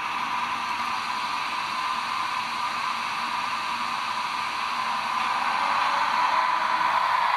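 PIKO H0-scale model of a PKP EU07 electric locomotive running with its sound decoder on: a steady hiss from the model's small speaker, growing a little louder about five seconds in.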